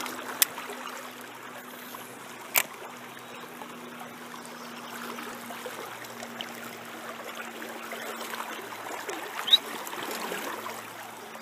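Shallow river running over a rocky riffle, a steady rush of water. Three short, sharp clicks stand out above it: about half a second in, about two and a half seconds in, and near the end.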